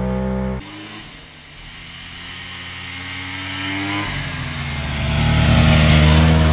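Polaris XLT 600 three-cylinder two-stroke snowmobile running, heard first from the seat; after a sudden change about half a second in, it is heard from the side, approaching and getting louder until it passes close by near the end.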